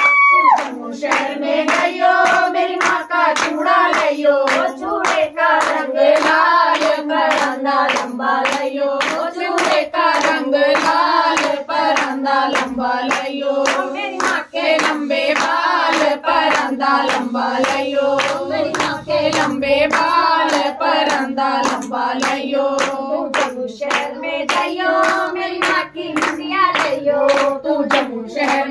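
A group of women singing a devotional bhajan with steady hand-clapping on the beat, about two claps a second.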